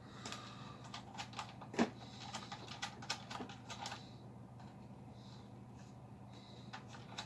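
Light irregular clicks and taps of a test speaker's leads being handled and hooked up to the amplifier, dying away about four seconds in, over the steady low hum of the powered-on amplifier's three cooling fans.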